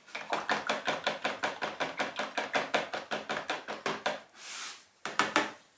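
Coloured soap batter being stirred by hand in a plastic jug, the utensil tapping against the jug's sides in a fast, even rhythm of about seven taps a second. A brief swish comes a little past four seconds, then a few more taps.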